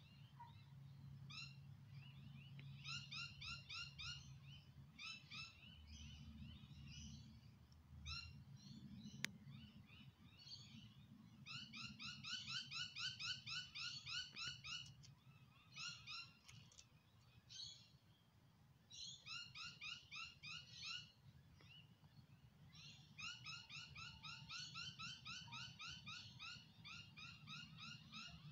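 Pied currawong calling in quick runs of rapid, repeated notes, each run lasting one to three seconds with short pauses between.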